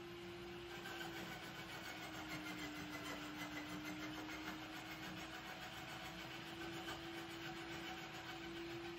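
A steady mechanical hum with a single constant tone that wavers only slightly in pitch, over a low even background hiss.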